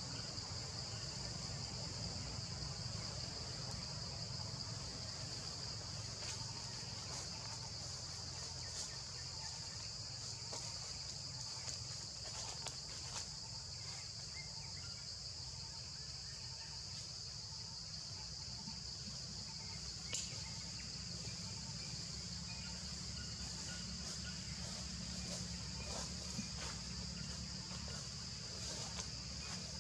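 Steady high-pitched drone of insects in the forest, with a low rumble underneath and a few faint clicks.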